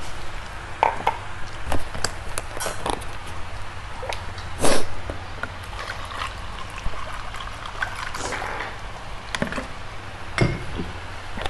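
Eating sounds at a meal of Korean spicy noodles: wet slurping of the noodles and broth, with scattered clicks of utensils against a bowl. The loudest is a short burst a little under five seconds in.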